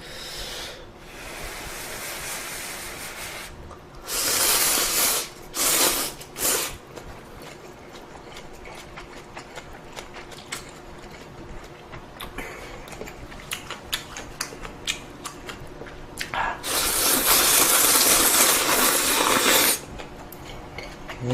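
Eating ramen noodles: three short loud slurps a few seconds in and one long slurp of about three seconds near the end, with soft chewing and chopstick clicks between them.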